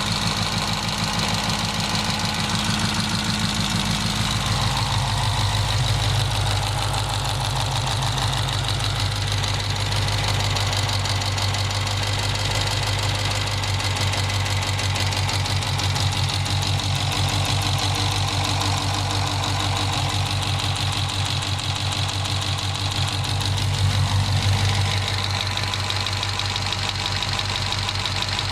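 Engine fitted with an HHP Stage 2R cylinder head and camshaft idling steadily, with a fast, even valvetrain ticking over the running note; the owner wonders whether the tick is lifter noise.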